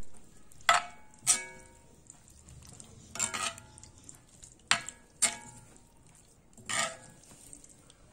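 A metal spoon clinks and scrapes against a cast-iron pan while stirring a thick curry. There are about six sharp, irregular knocks, each with a brief metallic ring.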